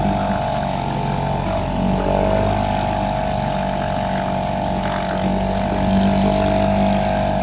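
Small outboard motors running steadily at throttle, pushing canoes across the water, a constant drone.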